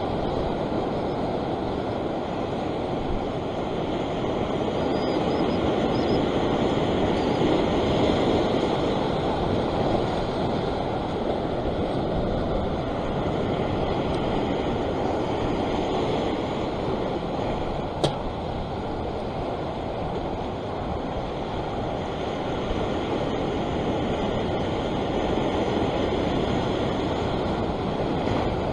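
Sea swell surging and washing over the rock ledge at the water's edge, a steady foamy rush of water that swells and eases. A single sharp click about eighteen seconds in.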